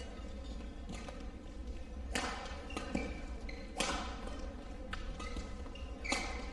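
Badminton rally: rackets strike the shuttlecock with sharp cracks every second or two, between short high squeaks of court shoes on the mat.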